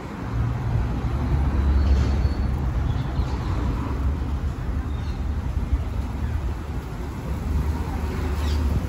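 City street ambience: a steady low rumble of road traffic, with a few faint, short high chirps.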